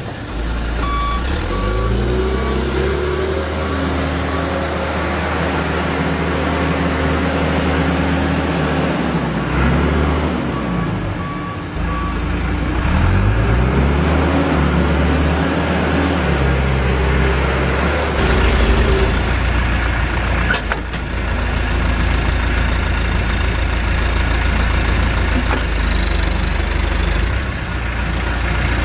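2005 John Deere 410G backhoe loader's diesel engine running, its revs rising and falling several times as the machine is worked. The reversing alarm beeps about twice a second in two spells, near the start and again around ten seconds in.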